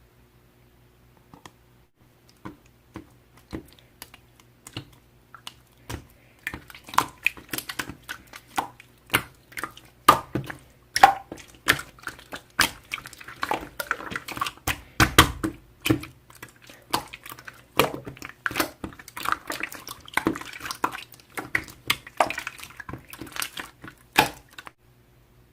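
Slime being squished and pressed by hand, making a string of wet clicks and small pops. It starts sparse, grows dense and busy, and stops shortly before the end.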